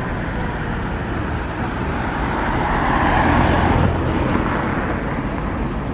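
A city bus driving past over steady street traffic noise. It grows louder about halfway through, then eases off.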